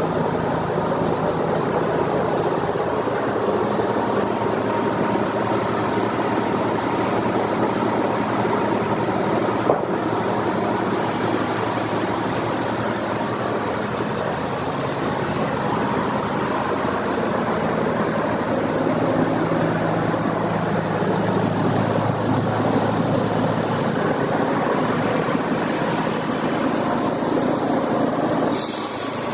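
Sawmill machinery running steadily: an engine hums under a constant mechanical din, with one sharp knock about ten seconds in.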